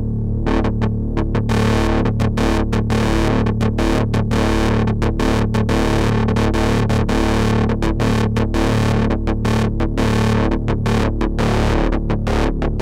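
Eurorack modular synthesizer patch run through an Erica Synths Black Ring-XFade ring modulator: rapid chopped notes with dense, clangorous ring-mod overtones over a steady low drone. The tone opens up and gets brighter about a second and a half in.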